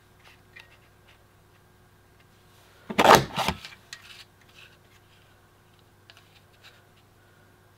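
Creative Memories Postage Stamp decorative border punch pressed down once through yellow cardstock about three seconds in, the loudest sound, with faint clicks and paper handling as the strip is slid along for the next punch.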